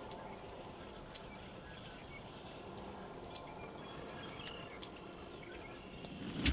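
Faint, scattered chirps of small songbirds over a steady outdoor background hiss, with a single sharp knock right at the end.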